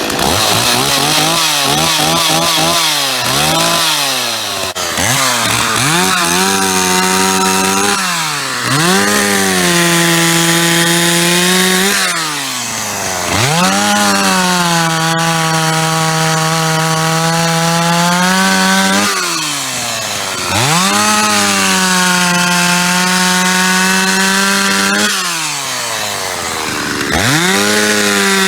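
STIHL 024 AVEQ two-stroke chainsaw revved in a few quick blips, then run to full throttle four times. Each time the pitch climbs, holds steady for several seconds and drops back to idle, as it saws through thick logs.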